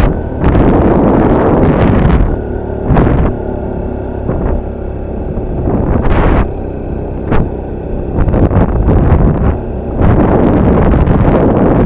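A vehicle's engine running as it climbs a steep road, under wind rushing over the microphone in repeated loud surges.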